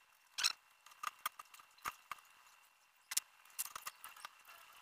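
Scattered light metallic clicks and clinks as a fat bike's front wheel, fitted with a disc rotor, is set into the suspension fork. The two loudest knocks come about half a second in and about three seconds in.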